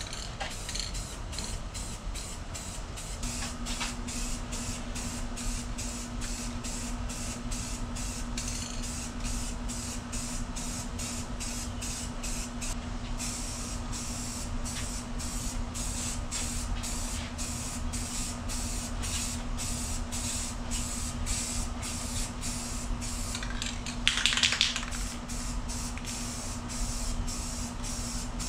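Aerosol spray can of purple Rust-Oleum paint hissing as it is sprayed on as primer. A steady low hum joins a few seconds in, and near the end there is one short, louder noise.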